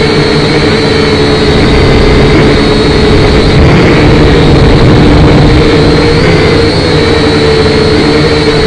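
Syma X5C quadcopter's small electric motors and propellers, heard close from its own on-board camera: a loud, steady buzzing whine that wavers slightly in pitch as it flies.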